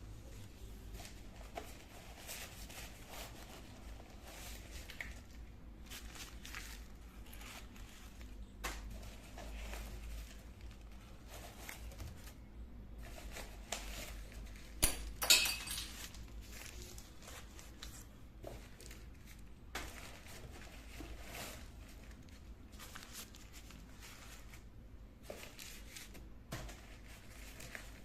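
Small items and packaging being handled during an unboxing: scattered light clicks and soft rustles, with a louder burst of clicking and crinkling about halfway through.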